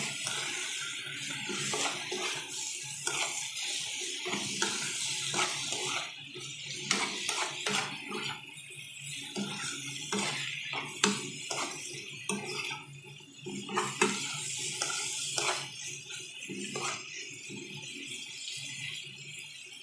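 Sliced chayote, tomato and onion sizzling in a nonstick frying pan, with a steady hiss, while a metal spoon stirs them, clicking and scraping against the pan at irregular moments.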